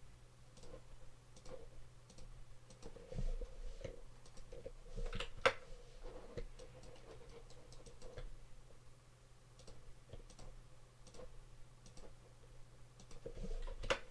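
Computer mouse and keyboard clicks, scattered and irregular, with one sharper click about five and a half seconds in, over a faint steady hum.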